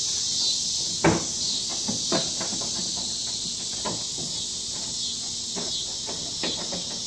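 Toyota MR2 rear bumper cover being pulled off by hand: a sharp plastic knock about a second in, then several lighter clicks and knocks as the clips let go. A steady chirping of insects runs underneath.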